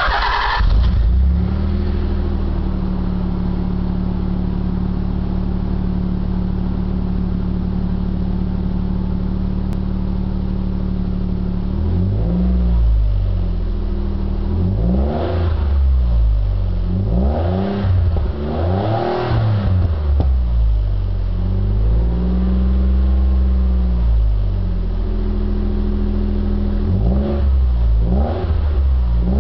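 1993 Nissan 300ZX's V6 through an Apexi Hybrid Megaphone aftermarket exhaust. It idles steadily for about twelve seconds, then is revved in a series of quick throttle blips, with one longer held rev about two-thirds of the way in.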